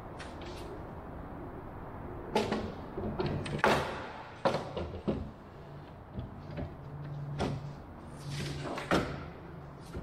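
Wooden vertical stabilizer and rudder frame knocking and clattering against a wooden workbench as it is handled and laid down flat: a cluster of sharp knocks between about two and five seconds in, and one more near the end.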